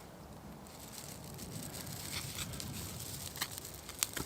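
Small fire of freshly lit tinder burning with a low rushing sound, and a few sharp crackles near the end.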